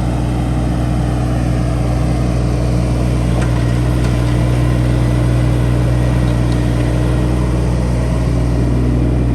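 Three-cylinder Isuzu diesel of a John Deere 17ZTS mini excavator running steadily, with a few faint clicks.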